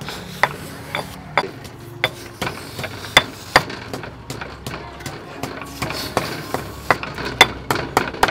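Small knife cutting the edges off a fresh Pedro cactus stem: a run of crisp, irregular snaps as the blade cuts through the firm flesh.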